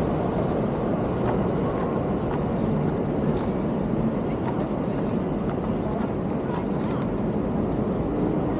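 Steady low rumble of city street traffic and movement noise, with no clear single event.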